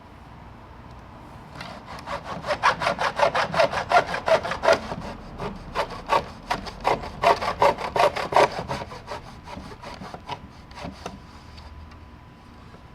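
Back-and-forth strokes of a hand saw cutting through pallet wood, about three to four strokes a second, starting about two seconds in, pausing briefly midway and petering out near the end.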